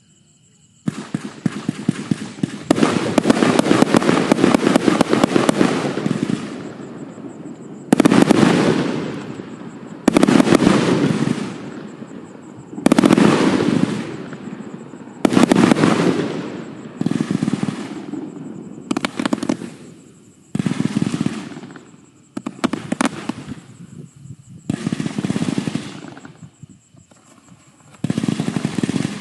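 A 240-shot firework cake firing. It opens with a continuous rapid barrage of shots lasting about five seconds, then fires a series of volleys of rapid shots, one roughly every two to three seconds, each fading out.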